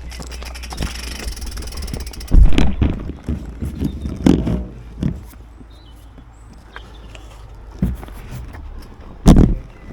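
A bicycle ridden over a rough track: a steady low rumble with a handful of sudden loud knocks and rattles as the bike jolts over bumps, the heaviest about two and a half seconds in and near the end.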